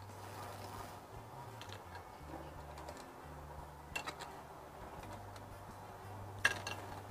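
Metal kitchen tongs clicking and tapping lightly as fried salmon balls are lifted onto a plate, a couple of faint taps about four seconds in and again near the end, over a low faint hum.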